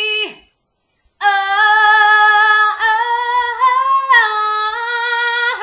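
A woman singing a cappella, holding long, steady notes without words that step up and down a little in pitch, after a brief pause about a second in.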